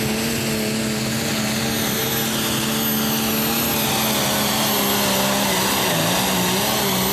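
Super Stock pulling tractor's alcohol-burning engine running flat out under load while pulling the sled. The note is loud and steady, then wavers and dips near the end.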